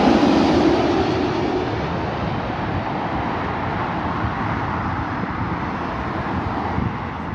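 Jet airliner noise, loudest at the start and slowly fading away as the aircraft moves off.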